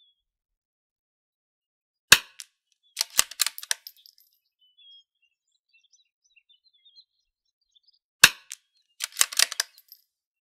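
Two .22LR rifle shots about six seconds apart from a long-barreled bolt-action rifle. About a second after each shot comes a quick run of metallic clicks as the bolt is cycled to chamber the next round. Faint bird chirps between the shots.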